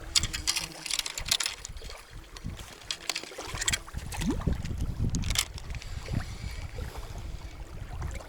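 Splashing water with wind buffeting the microphone, and a run of short, sharp sounds in the first four seconds and once more a little after five seconds in.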